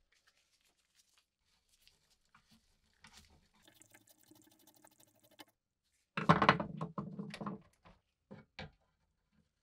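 Steel punch worked against a pin through an antique pruning saw's wooden handle clamped in a vise, giving scratchy scraping and creaking of metal on wood. The scraping is loudest from about six seconds in, then gives way to two light knocks.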